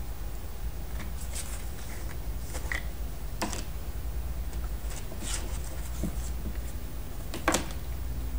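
Scattered light clicks and taps of plastic Play-Doh tools being handled and pressed, the sharpest near the end, over a low steady hum.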